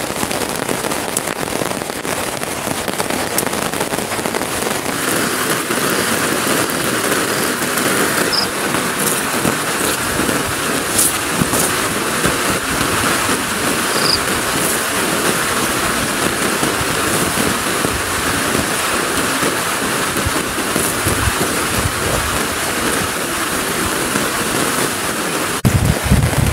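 Heavy rain falling steadily on a tarp overhead and the ground around it, as an even, continuous noise. About a second before the end the sound changes suddenly and a low rumble comes in.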